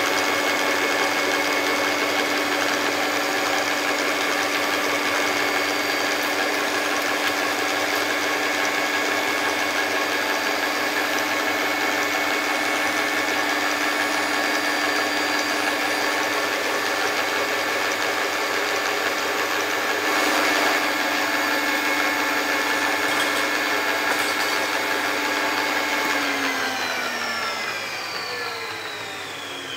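Hoover Automix 8924 food mixer's electric motor running at a steady, high whine while mixing. Near the end it is switched off and the whine falls in pitch as the motor spins down.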